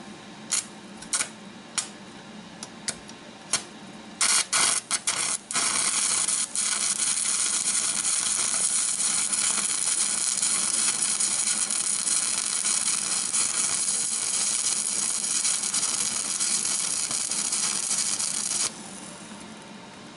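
Electric arc welding on a steel caster bracket: a few short crackles as the arc is struck and breaks off, then a steady loud crackling hiss as a bead is run for about thirteen seconds, stopping abruptly near the end.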